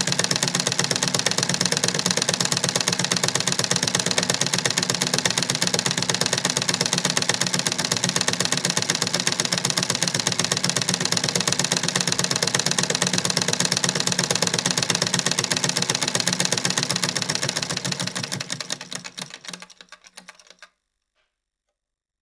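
1930s foot-operated Singer treadle sewing machine running fast with a steady, rapid clatter of stitching, winding down and stopping near the end.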